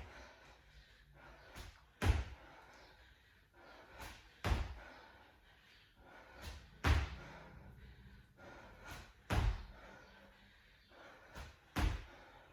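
Feet landing on the floor from squat jumps, a thud about every two and a half seconds, five in all, with quieter shuffling between landings.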